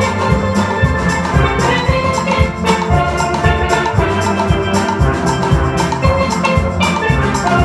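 Steel band playing a gospel tune: several steelpans ringing out melody and chords over a steady drum beat.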